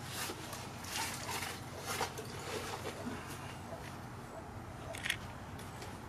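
Soft knocks and rustles as a drained RV water heater is carried and set down on grass, with a sharper knock about five seconds in.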